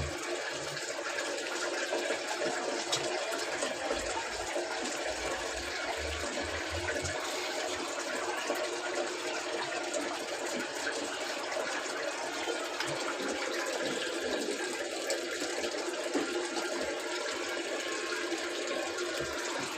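Water running steadily into a Samsung Digital Inverter washing machine's drum, an even rush of water.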